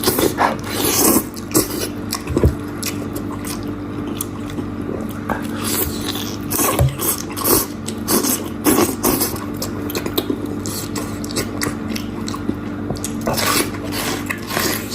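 A person eating goat head: irregular chewing, biting and scraping sounds, short clicks and smacks at uneven intervals, over a steady low hum.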